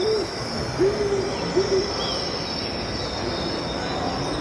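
Nature soundscape of owl hoots over a steady chorus of crickets: three smooth hoots in the first two seconds, then the cricket chorus goes on alone over a general background hubbub.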